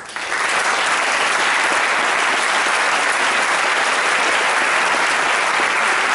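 Large audience applauding, the clapping starting suddenly and holding steady and dense.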